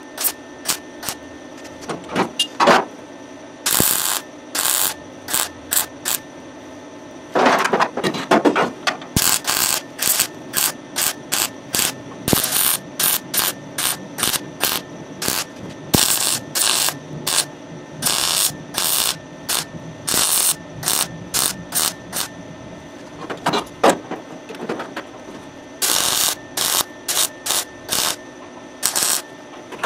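MIG welder laying short tack and stitch welds on sheet steel: a rapid, irregular run of brief arc bursts, each a fraction of a second to about a second long, stopping and starting with short gaps between.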